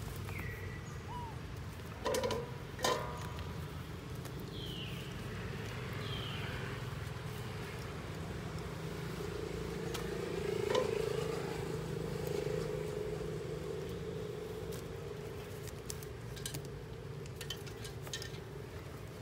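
Steady low background rumble that swells about ten seconds in, with two short knocks a few seconds in and a few faint, high, falling squeaks.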